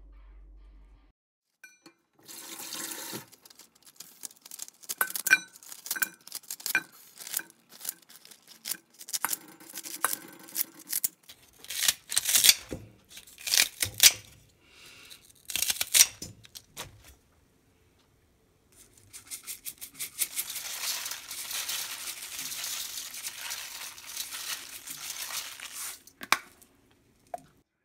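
Napa cabbage leaves being cut and dropped into a mesh colander: a long run of crisp snaps and rustles. Then a tap runs steadily for about seven seconds, water pouring over the cabbage in the colander.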